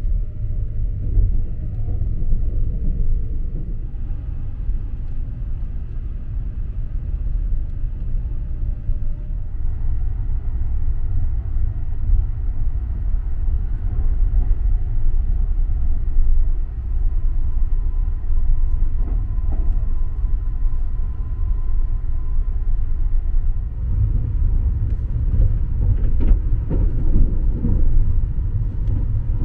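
Sunrise Express sleeper train, a 285 series electric train, running at about 100 km/h, heard from inside the carriage as a steady low rumble. Louder clattering comes near the end.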